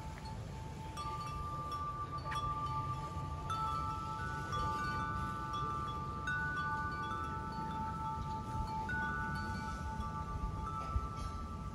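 Metal tube wind chime stirred by the breeze, its tubes struck every second or two and ringing in long, overlapping bell-like tones over a low steady rumble.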